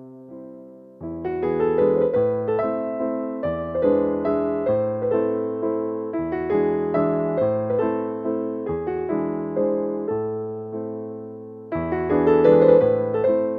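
Background piano music: a gentle melody over chords that change about once a second. It is sparse for the first second, then fuller.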